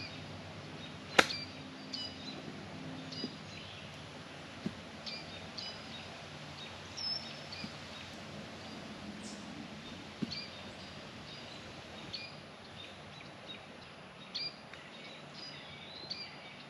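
A single sharp strike of a golf club on the ball about a second in, a short chip played from just off the green. Small birds chirp on and off throughout.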